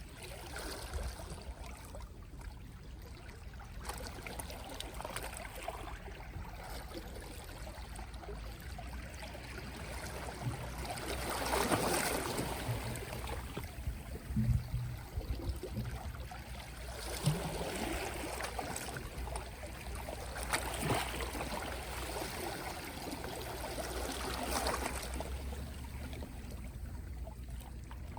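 Small, gentle sea waves lapping and washing on the shore, coming in several soft surges, the strongest about twelve seconds in, over a steady low rumble.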